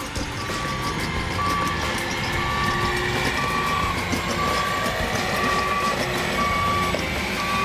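Garbage truck's reversing alarm beeping steadily, about one beep a second, over the truck's running engine.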